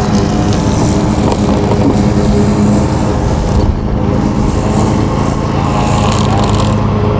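Lawn mower engine running steadily, a continuous hum with a slight waver in pitch around six seconds in.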